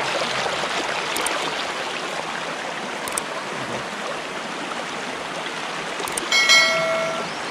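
Shallow mountain stream rushing and splashing over boulders, a steady watery hiss. A few faint clicks and a short chime about six seconds in come from a like-and-subscribe button animation.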